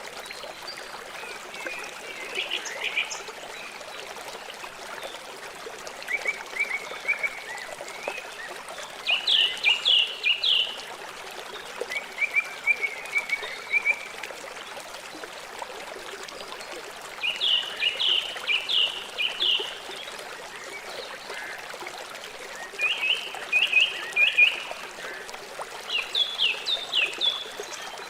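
A river or stream flowing steadily, with a bird calling over it in short bouts of rapid notes every few seconds.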